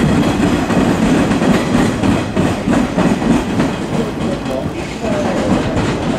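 Electric commuter train running through the station at close range: a loud, steady rumble of wheels on rails.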